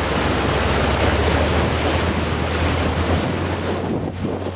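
Loud rushing noise of wind on the microphone from a moving off-road vehicle on a wet, rocky dirt track, over the engine's low steady drone; the hiss thins out near the end.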